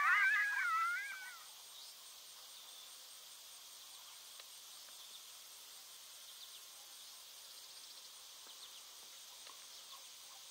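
Coyotes yipping and howling, several wavering high calls overlapping, trailing off about a second and a half in. After that only a faint steady insect trill remains.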